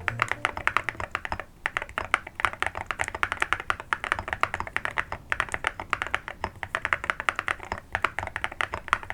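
Fast typing on a mechanical keyboard with ceramic keycaps, Keygeek Ash switches and a foamed PC plate: a dense run of deep, muted key strikes, pausing briefly three times.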